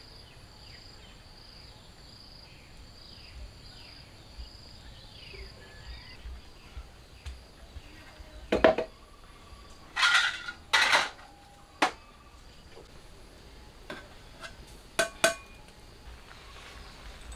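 Metal plates and bowls clinking and clattering as they are handled on a wooden shelf: one sharp ringing clink about halfway, two louder clattering bursts just after, then a few lighter clinks near the end. A high chirping repeats about once a second through the first half.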